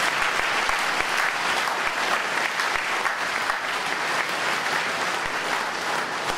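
Audience applauding: dense, steady clapping from many hands that eases off slightly toward the end.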